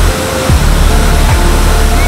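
Background electronic dance music with a steady kick drum under a loud hissing noise wash.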